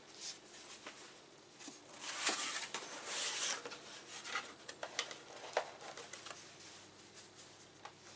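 Rustling and light clicks from handling a circuit card and its packaging, loudest in a rustle about two to three and a half seconds in.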